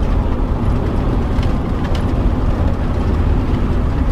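Steady low rumble of a motorhome driving at road speed, engine and tyre noise heard from inside the cab.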